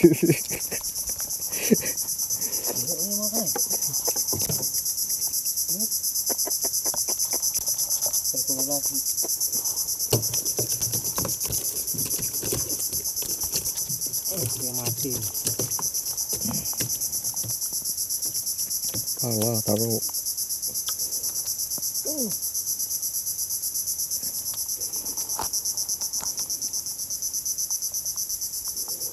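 A steady, high-pitched chorus of insects, with several shrill layers sounding together.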